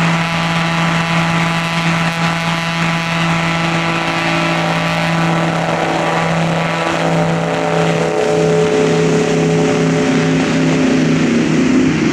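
Pilatus PC-21 turboprop (Pratt & Whitney Canada PT6A engine, five-blade propeller) at takeoff power during its takeoff roll: a loud, steady propeller drone whose pitch shifts over the last few seconds as the aircraft passes and lifts off.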